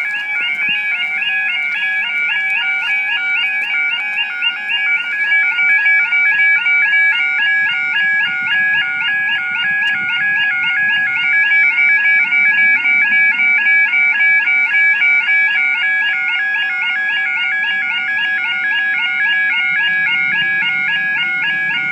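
Level crossing audible warning alarm, an electronic warble of several pitches repeating rapidly and without pause. This is the sign that the crossing is closed for an approaching train. A low rumble from the approaching train builds in the last couple of seconds.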